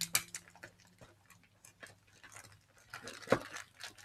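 Small clicks and taps as slime-kit parts and packaging are handled, with one sharper knock about three seconds in.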